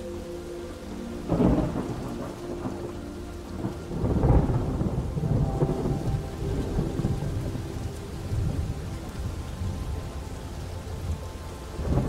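Thunderstorm: thunder over steady rain, with a sharp clap about a second in, then a louder, longer rumble from about four seconds that rolls on and slowly fades, and another clap near the end.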